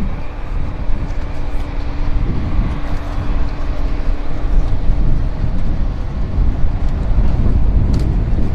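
Wind buffeting a phone microphone, a heavy low rumble, with a faint steady hum that stops about five seconds in.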